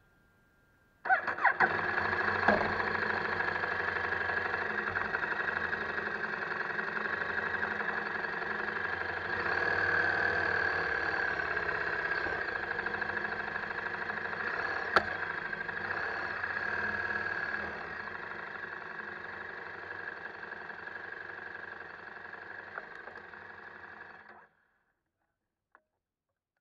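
KTM 1190 Adventure's V-twin engine running at low speed. It comes on suddenly about a second in and is switched off near the end.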